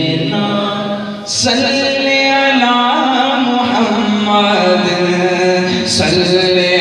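A man chanting a naat, an Urdu devotional poem in praise of the Prophet, into a microphone in long, held, wavering notes. There is a short break a little over a second in, ending in a sharp hiss, and another hiss near the end.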